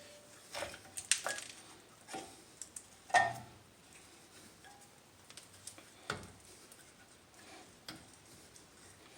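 Irregular clicks and knocks of tools and brake parts being handled during front caliper piston compression, the loudest a brief ringing knock about three seconds in.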